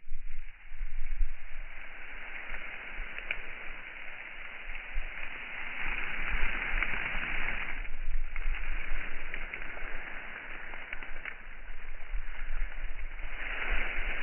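HOWO concrete mixer truck running: a steady rushing, churning noise that swells and eases, with a low rumble underneath.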